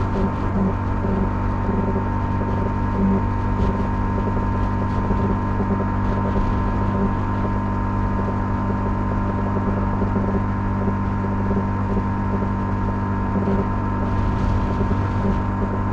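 Honda CL250's single-cylinder engine running at a steady cruising speed, its note holding even with no gear changes or revving.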